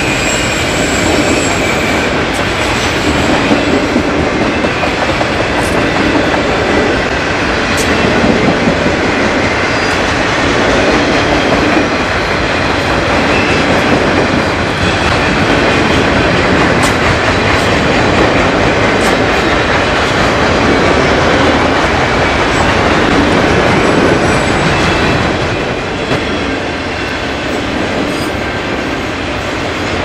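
Freight train cars rolling past on the rails: a steady, loud rumble of wheels with scattered clatter of wheel clicks over rail joints. The sound eases a little near the end.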